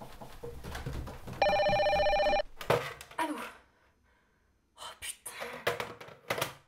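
Telephone ringing: one ring about a second long, a second and a half in. It is followed by a few knocks and clatters, a short silence, then another run of quick knocks.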